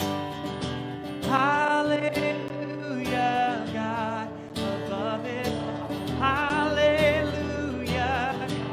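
A man sings a worship song with vibrato to his own strummed acoustic guitar, the singing starting about a second in.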